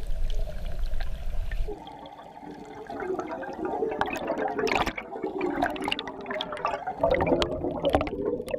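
A low underwater rumble, then from about two seconds in, a scuba diver's exhaled breath bubbling and gurgling up past an underwater camera, with many small pops and clicks.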